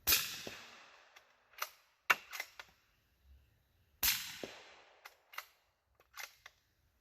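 Two suppressed shots from a Remington 700 bolt-action .308 firing subsonic rounds, about four seconds apart. Each is a sharp report with a short fading tail. After each shot comes a quick run of metallic clicks as the bolt is worked to chamber the next round.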